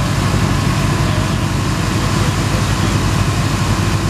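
Tour boat's engines running steadily under way, a constant low drone over the rush of water churned up in the wake.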